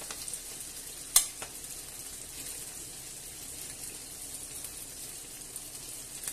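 Chicken and chorizo pieces sizzling in olive oil in a frying pan, a steady hiss, with a sharp click of metal tongs about a second in as pieces are lifted out.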